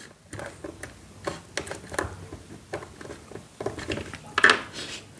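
Screwdriver tightening the screw terminal of a single-pole miniature circuit breaker (MCB) on a DIN rail: a run of small irregular clicks and scrapes, with a louder clack near the end.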